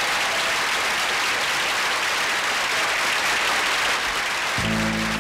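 Studio audience applauding. About four and a half seconds in, the applause gives way to the band's opening notes, sustained pitched chords.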